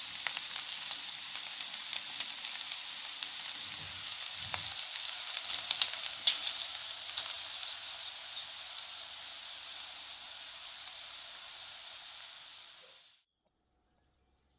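Meatballs frying in oil with diced zucchini and bacon in a pan: a steady sizzle with crackles and pops, busiest about six seconds in, fading away near the end.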